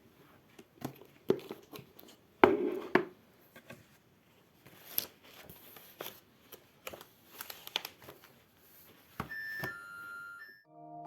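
Small objects being handled: scattered light clicks and taps with soft rustling between them. A short run of high electronic tones comes in about nine seconds in.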